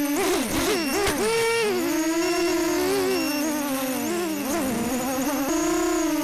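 Storm SD250 FPV racing quadcopter's electric motors and propellers whining in flight, the pitch swinging rapidly up and down as the throttle is worked, then settling to a steady whine near the end.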